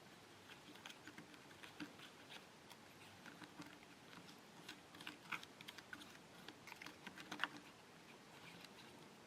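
Faint, irregular light clicks and taps of small plastic pieces being handled, as in working a DIY candy kit's plastic tray and utensils; the taps come thicker and a little louder a few seconds in.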